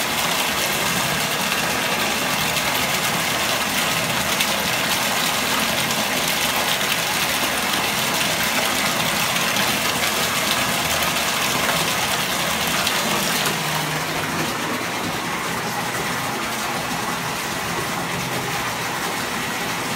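Bathtub tap running full, water pouring steadily into a filling tub. About two-thirds of the way through, the rush drops a little and sounds duller.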